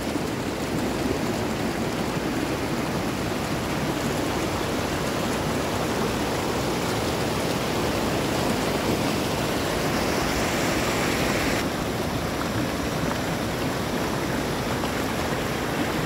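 Steady rush of a waterfall's falling water, an even roar without a break. About ten seconds in, a higher hiss joins for a second or two and cuts off suddenly.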